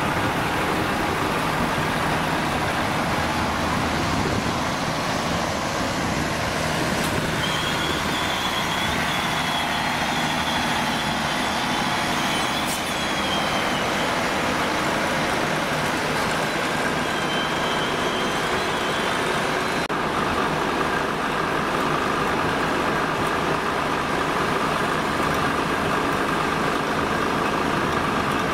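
CP Series 592 diesel multiple unit's engine running steadily at a constant level. A thin, high squeal is heard twice, once for several seconds starting about a quarter of the way in and again briefly past the middle.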